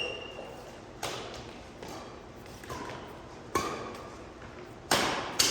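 Badminton rackets striking a shuttlecock in a rally: sharp hits about a second apart, each ringing briefly in a large hall, the last two coming close together near the end.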